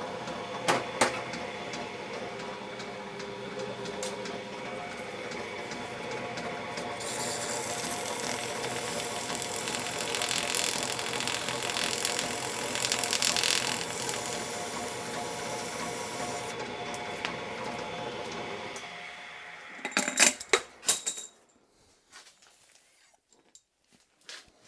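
Small metal lathe running steadily with a chucked bolt, with a louder hiss of cutting in the middle. The motor stops near the end, followed by a quick run of sharp metallic clatters.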